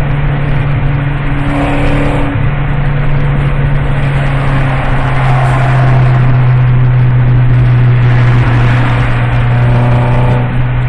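Ford Focus 2.5's engine and exhaust running with a steady, loud drone, its pitch easing down slightly about four seconds in.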